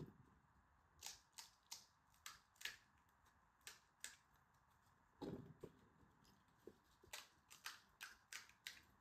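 Faint, short, crisp crackles from hollow fried pani puri shells being cracked and crunched, scattered at about one or two a second and coming thicker near the end.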